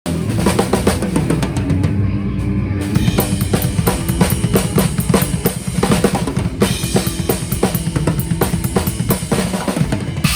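Yamaha Maple Custom Absolute drum kit with Zildjian cymbals played hard and fast: dense kick, snare and tom strokes, with cymbal wash filling in about three seconds in.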